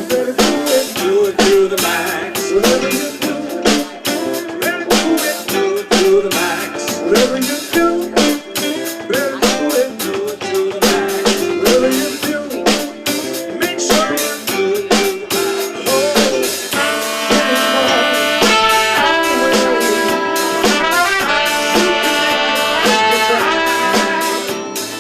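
Live band playing, drum kit and guitar driving a steady beat; about two-thirds of the way through, long held chords come in over the drums.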